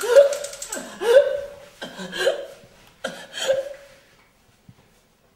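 A young woman crying out in distress: four strained cries about a second apart, each rising in pitch, dying away after about four seconds.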